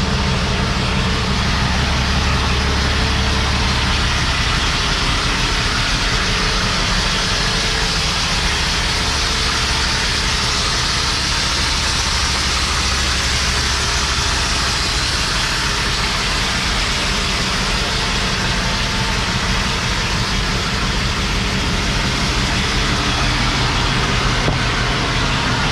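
International ProStar semi truck's diesel engine running steadily, its low hum under a loud, even hiss.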